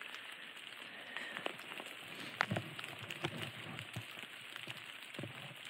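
Light rain falling in a forest: a steady soft hiss with a few scattered ticks, like drops landing on leaves.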